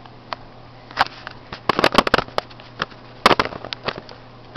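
Plastic Gyaos toy figure being twisted in the hands: a quick, irregular run of sharp clicks and cracks starting about a second in, as the head is forced against the glue seal that holds it.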